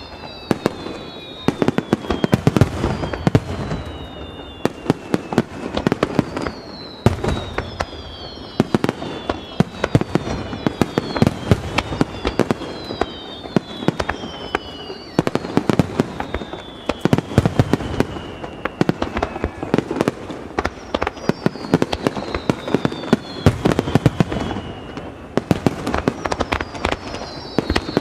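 Aerial fireworks going off in a dense barrage: many sharp bangs and crackling reports, overlaid with repeated whistles that fall in pitch over a second or two each.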